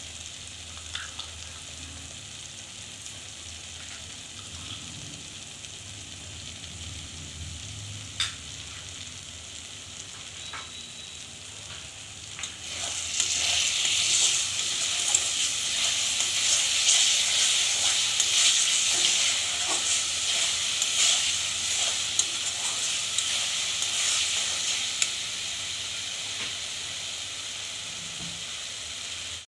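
Tomato and mango chutney bubbling in a kadai with a low sizzle and a few small clicks, then, about halfway through, a much louder sizzle with scraping as a spatula stirs in the freshly added sugar. The sizzle slowly eases off toward the end.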